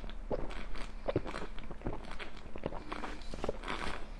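A person gulping a fizzy drink straight from a glass bottle, with short regular swallows about two to three a second.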